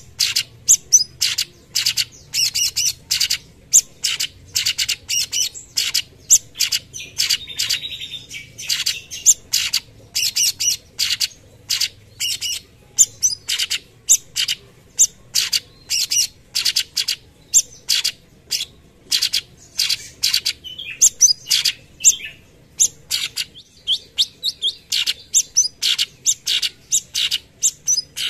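Cucak cungkok, a leafbird, singing a long run of short, sharp, high notes repeated about twice a second. This is the rapid 'tembakan' (shot-like) song used as a masteran for training other songbirds.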